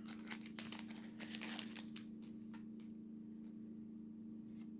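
Faint crinkling and rustling of a foil baseball-card pack wrapper and cards being handled, a few scattered soft clicks, mostly in the first two seconds, over a steady low hum.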